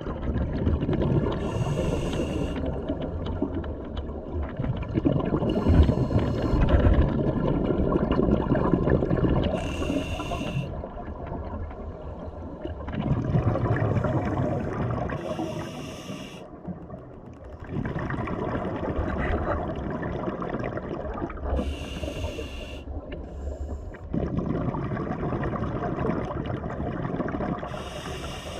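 Scuba diver breathing through a regulator underwater: six hissing inhalations, one every four to six seconds, each followed by a longer bubbling exhalation.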